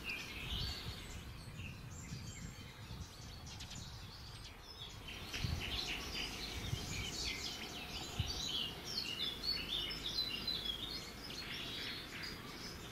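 Small birds chirping and singing, busier from about five seconds in, over a low steady rumble.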